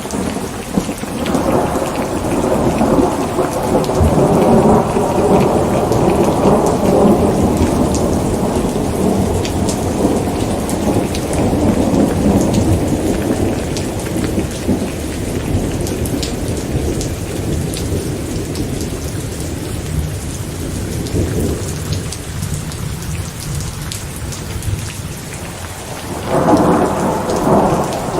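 Rainstorm: steady rain with rolling thunder. A long roll of thunder swells in at the start and slowly dies away, and a second roll begins near the end.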